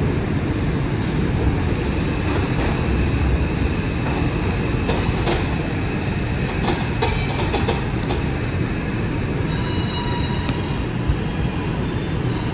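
R142 subway car running and slowing into a station, heard from inside the car: a steady low rumble of wheels on rail with a few faint clicks. From about three quarters of the way in, a high squeal of several tones sounds as the train brakes toward a stop.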